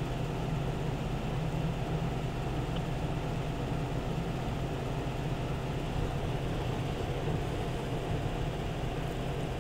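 Steady low hum with faint hiss and no voices on a phone-call line while the connection has cut out.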